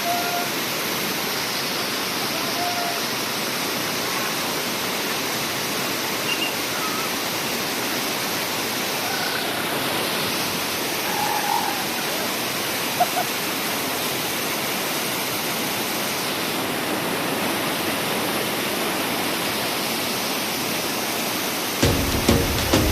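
Steady rushing of a waterfall, an even wash of water noise. Music comes in just before the end.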